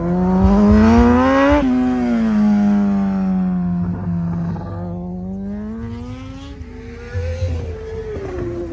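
Superbike engine revving hard as it accelerates, its note climbing and then dropping sharply at a gear change about one and a half seconds in. The note sinks, climbs again, and drops at another shift later on.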